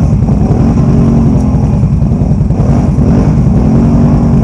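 Can-Am Renegade 1000 ATV's V-twin engine revving hard under load, its pitch rising and falling with the throttle.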